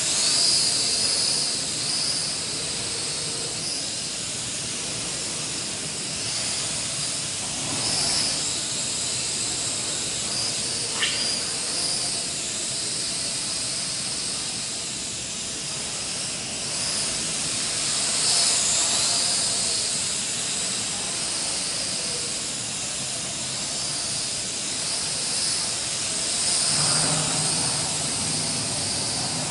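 Small L6036 quadcopter flying: its motors and propellers make a steady hiss with a high whine that wavers up and down as the throttle changes.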